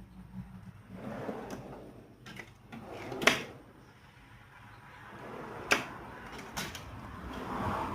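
Metal toolbox drawers rolling open and shut on their slides, with two sharp clacks as drawers close.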